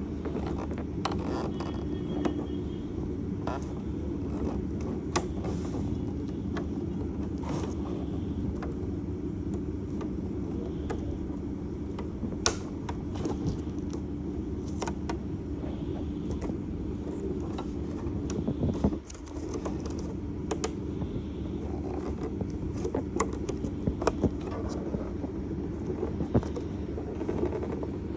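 Scattered clicks, knocks and rustles of a plastic toy and its packaging being handled as it is taken out of the box, over a steady low hum.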